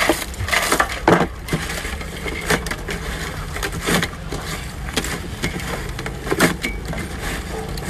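A large stainless steel bowl of small raw crabs being tossed and stirred by hand, the shells clattering and rustling in irregular bursts over a steady low rumble.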